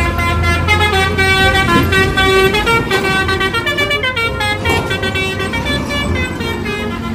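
Multi-tone 'telolet' bus horn playing a quick tune of short stepped notes, with a low steady hum underneath for the first couple of seconds.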